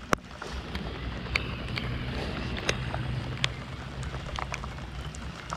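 Bow-mounted electric trolling motor humming steadily, with raindrops ticking irregularly on and around the boat.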